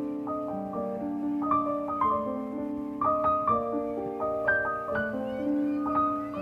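Background piano music: slow, held notes ringing and overlapping one another.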